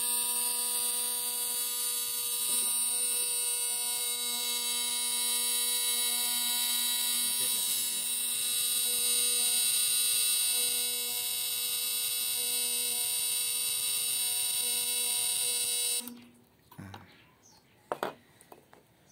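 Homemade battery-powered step-up inverter for electric fishing of tilapia, buzzing steadily with a high whine while it lights a halogen bulb. That it can light a halogen bulb and not just an LED is the sign that it is strong enough to shock tilapia. It cuts off abruptly about three seconds before the end, followed by a few faint handling clicks.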